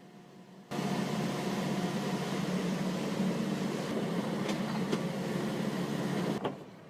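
Steady mechanical running noise with a low hum and a few faint clicks. It starts suddenly about a second in and cuts off abruptly near the end.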